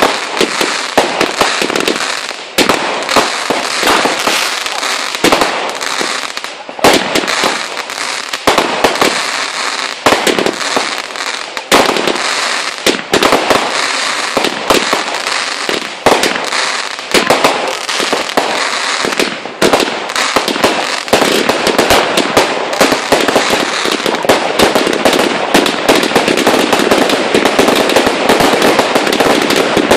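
Consumer fireworks going off in rapid succession: a stream of sharp bangs and crackling bursts, thickening into a dense, continuous crackle over the last third.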